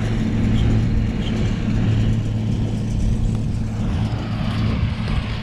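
Diesel tractor engine running at a steady speed with an even low hum, powering a working hay baler.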